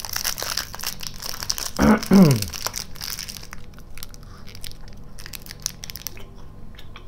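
Crinkling and crackling of a candy wrapper being pulled open, with a short vocal sound falling in pitch about two seconds in. For the last few seconds there are only sparse soft clicks of chewing on a caramel-and-cookie candy.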